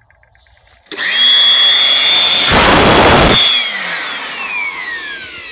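Rutlands Workshop Series corded electric blower switched on about a second in, running at full speed with a steady high whine. About midway there is a stronger rush of air lasting about a second. Then it is switched off and winds down, its whine falling in pitch.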